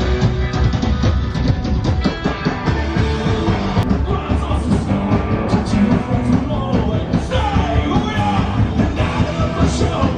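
Loud punk-rock music with a steady drum beat, guitar and a singing voice.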